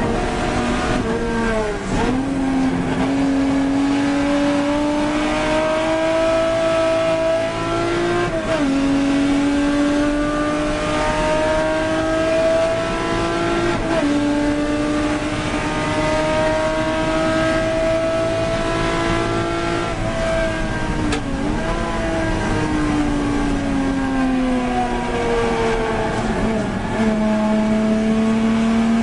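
Mk3 Ford Capri race car's engine heard from inside the cockpit, pulling hard through the gears with upshifts about 8 and 14 seconds in. About 20 seconds in the pitch falls as the car brakes and changes down for a corner, then picks up again near the end.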